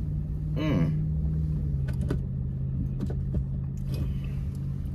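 Car cabin noise while driving: a steady low engine and road drone. A brief vocal sound comes about a second in, followed by a few faint clicks.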